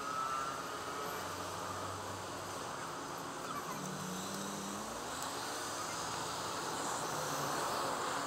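City street traffic under a steady rush of noise from a moving bicycle, with a motor vehicle's engine rising in pitch about four seconds in.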